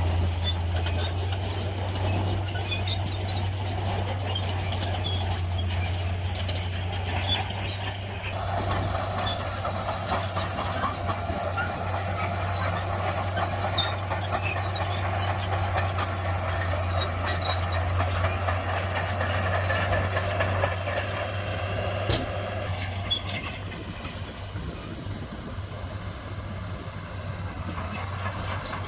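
Shantui bulldozer's heavy diesel engine running steadily under load, with scattered clicks and clanks from the work. The engine note shifts a little about a third of the way in and grows quieter near the end.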